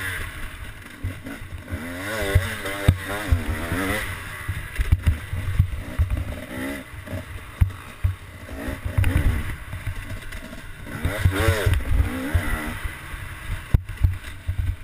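KTM 250 two-stroke motocross bike's engine, heard from the rider's helmet camera, revving up and falling back again and again as the throttle is worked around the track, with frequent low thuds underneath.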